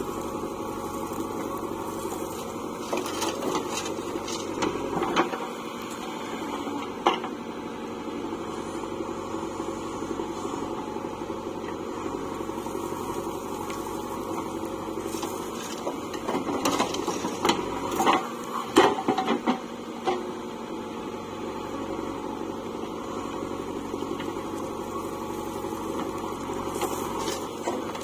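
JCB 3DX backhoe loader's diesel engine running steadily as the backhoe digs earth and swings it over to a tractor trolley. Short knocks and clatters from the bucket and falling soil come now and then, loudest in a cluster about two-thirds of the way through.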